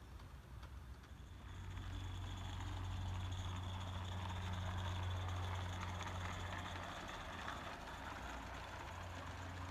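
Accucraft Ruby live-steam locomotive running past with its train: a steady steam hiss over a low rumble. It swells from about two seconds in as the engine draws close and eases a little near the end.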